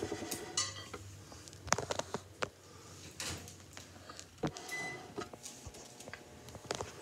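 Paper flashcards being handled close to the microphone: an irregular string of clicks, taps and brief rustling scrapes as the cards are shuffled and straightened.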